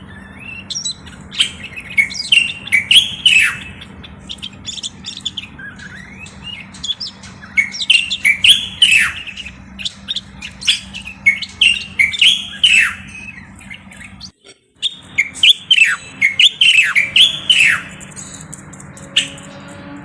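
Common bulbul singing: short phrases of quick, falling whistled notes repeated every second or two, over a faint steady hum. The sound cuts out briefly about fourteen seconds in.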